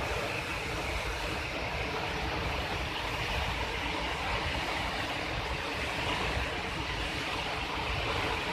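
Steady rush of a waterfall over river rapids, an even roar of falling water with a low rumble.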